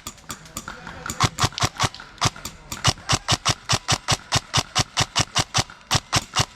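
A rapid, even series of sharp clacks, about five or six a second, loosening slightly about half a second in and then running on steadily.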